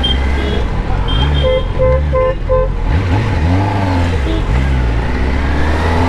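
Kawasaki Ninja ZX-10R inline-four engine running and revving up and down in traffic. About a second and a half in, a vehicle horn gives four quick toots, and more short horn toots follow.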